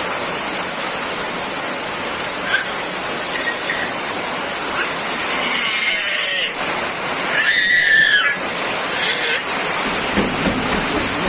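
Heavy rain falling, a steady hiss. A few brief high-pitched animal calls sound over it, around six and eight seconds in.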